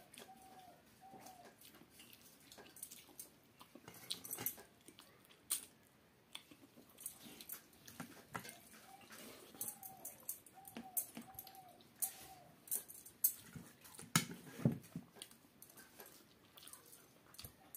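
Close mouth and hand sounds of rice and curry being eaten by hand: wet chewing, lip smacks and sharp clicks. Twice, a short run of repeated high arched calls from an animal can be heard in the background, once right at the start and again around the middle.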